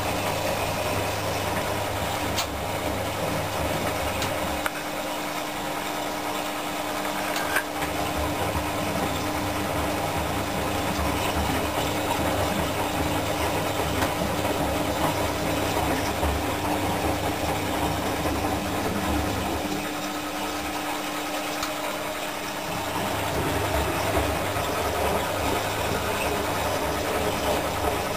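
Predom Westa 85 front-loading washing machine in its wash cycle, the motor turning the drum and tumbling wet, foamy laundry. Its low hum fades away twice for a few seconds, about five seconds in and again about twenty seconds in.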